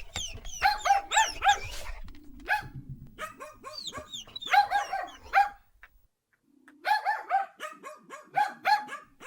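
Rapid, high-pitched yipping barks like a small dog's, in three quick runs with a short pause before the last.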